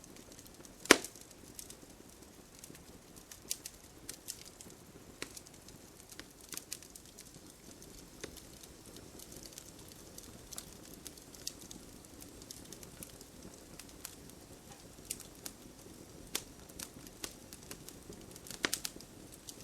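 Campfire crackling: a soft steady hiss of burning wood with scattered sharp pops and snaps, one loud pop about a second in and a cluster of pops near the end.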